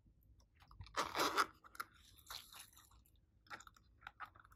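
A small plastic case being handled and opened by hand: a short crackly rustle about a second in, then scattered light clicks and taps on the plastic.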